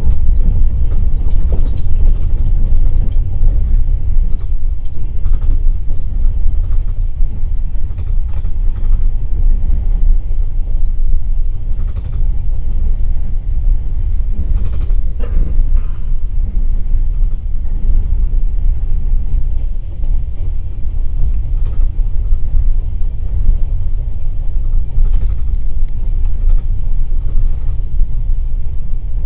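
Passenger railway carriage running along the line: a steady, loud rumble of wheels on the track, with a few short clicks and knocks.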